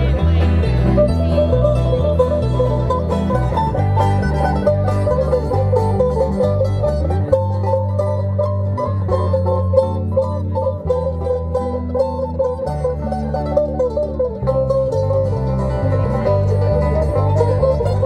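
Bluegrass string band playing live through PA speakers, with a banjo picking over guitars and an electric bass. The bass steps back and forth between notes, holds longer notes for a few seconds midway, then picks up its stepping again.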